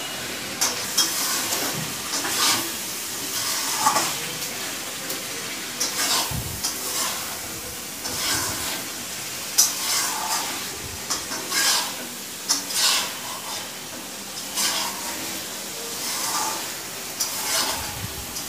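Chicken pieces frying and sizzling in an aluminium kadai, stirred with a metal ladle that scrapes and knocks against the pan about once a second over the steady sizzle.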